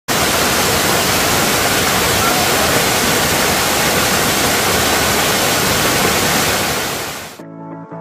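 Small mountain waterfall pouring over boulders into a rocky pool: a loud, steady rush of falling water. It cuts off abruptly near the end, and music with plucked-string notes takes over.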